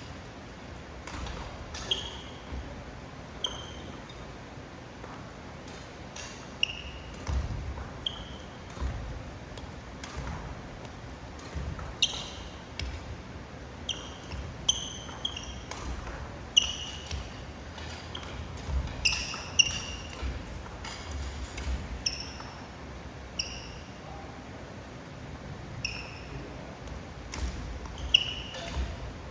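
Badminton rackets striking shuttlecocks in a rapid push-shot knock drill: sharp hits about once a second, mixed with short squeaks of court shoes and low footfall thuds on the gym floor.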